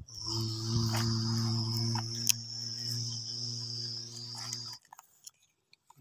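A steady low drone with a high hiss over it, cutting off suddenly near the end, with soil crunching and spilling and a few sharp clicks as the toy excavator's bucket scoops dirt.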